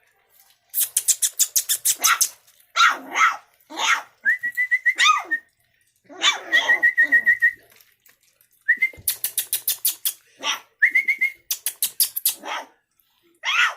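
A litter of young puppies eating from a shared bowl: runs of rapid lapping and smacking clicks, broken by short yips and a few thin, high held whines.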